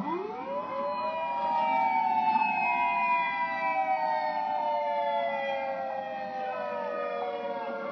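Outdoor tornado warning siren sounding several tones together. The pitch rises sharply in about the first half second, then slowly and steadily falls.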